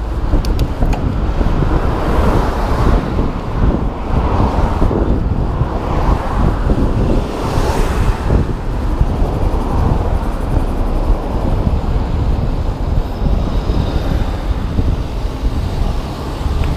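Wind buffeting an action camera's microphone during a bicycle ride at speed, a steady loud rumble, with road and traffic noise from cars on the street and a brief louder swell of noise about eight seconds in.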